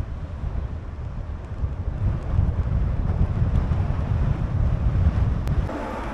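Wind buffeting the microphone, a loud gusty rumble that eases off near the end.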